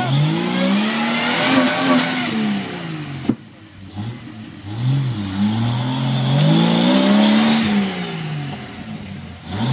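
Jeep Wrangler engine revving hard and falling back in about three long pulls, with a short lull between them, as the Jeep struggles to climb out of a mud hole where it is stuck.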